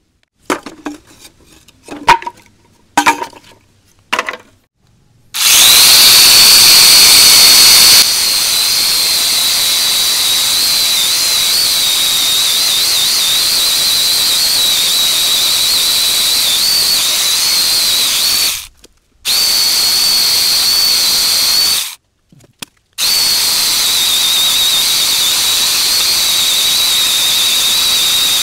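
Mitsushi electric angle grinder fitted with a chainsaw attachment running at full speed: a loud, steady high whine whose pitch wavers at times. It is switched off and back on twice, after a few short knocks and clicks at the start.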